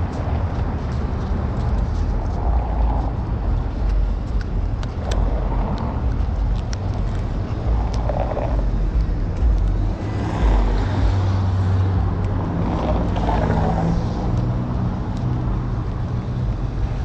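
City street traffic: cars running on the roads beside the sidewalk with a steady low rumble, swelling louder about ten seconds in as traffic passes closer.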